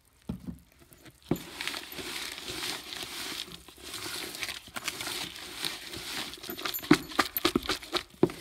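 A spoon stirring wet chatpate (puffed rice with chilli and onion) in a metal bowl, a steady rustling and squelching, with several sharp clicks of the spoon against the bowl near the end.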